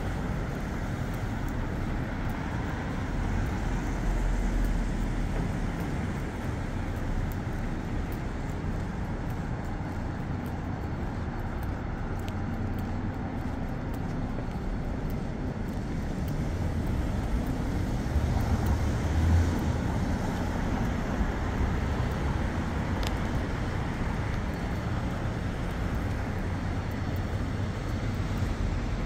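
Steady city street traffic: a continuous low rumble of passing cars, getting a little louder about two-thirds of the way through.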